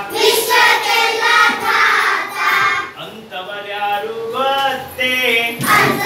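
A class of young children singing a Kannada action song together, phrase by phrase with short breaks between lines.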